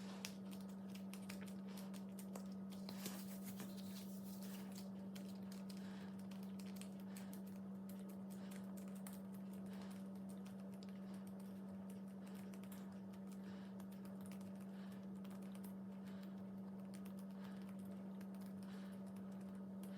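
Soft slime being pulled apart and pressed by hand, making faint small sticky clicks and crackles, over a steady low hum.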